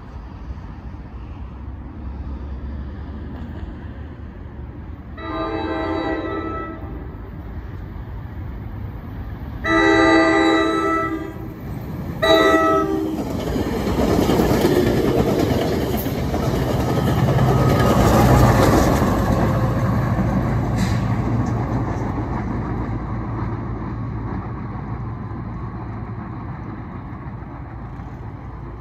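New Jersey Transit train with Comet IIM coaches passing through the station at speed: the locomotive's horn sounds three blasts (long, long, short). The rumble and clatter of the wheels on the rails then builds, peaks as the coaches go by, and slowly fades.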